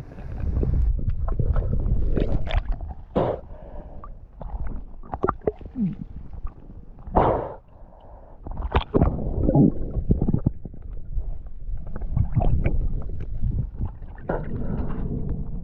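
Underwater gurgling and bubbling with a steady low rumble and scattered irregular clicks and knocks, as heard by a camera carried by a spearfishing diver.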